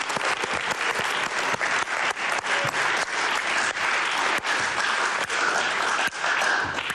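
Studio applause: a group of people clapping steadily, many quick claps blending together.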